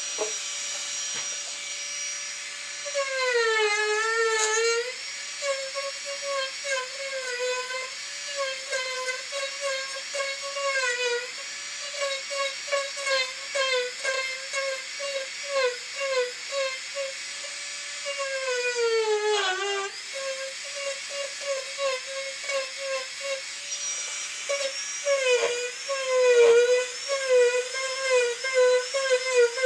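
Marathon micro motor carving handpiece whining at high speed with a small bit cutting into a wood carving. Its pitch dips in quick repeated wobbles each time the bit bites, with two longer sags under heavier load, about three seconds in and again about nineteen seconds in.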